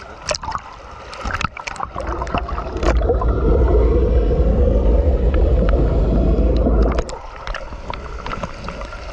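Pool water splashing and bubbling at the surface, then a loud, muffled rush of a pool jet's churning water and bubbles heard underwater for about four seconds, and splashing again after the camera comes back up.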